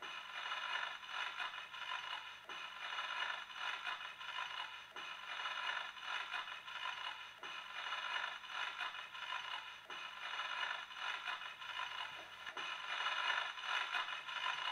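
Faint crackling, hissing noise with thin steady tones running through it, swelling and fading about every two and a half seconds.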